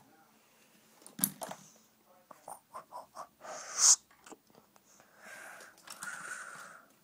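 Breathing and breathy mouth noises close to the microphone: a click about a second in, a quick run of short ticks, a sharp puff of breath just before four seconds in, then a long breathy hiss near the end.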